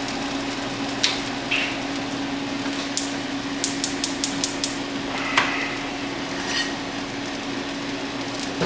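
Kitchen utensils clicking and tapping as bacon is readied, with single clicks and a quick run of about six near the middle, over a steady low hum.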